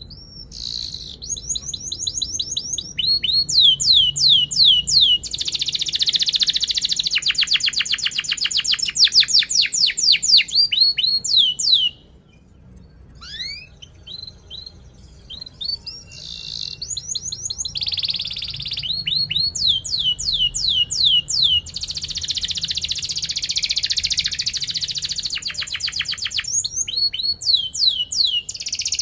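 Yellow domestic canary singing long, high songs of fast repeated chirps and rolling trills. The song breaks off about twelve seconds in, then picks up again with scattered notes and builds into another long song.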